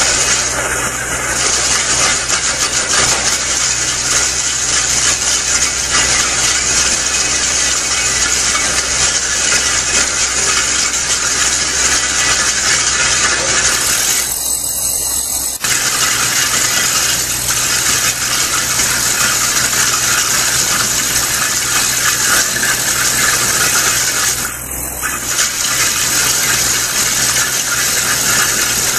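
Excavator-mounted hydraulic drum cutter milling a concrete wall: a loud, steady grinding and rattling of its rotating pick drum against the concrete, over the excavator's engine running.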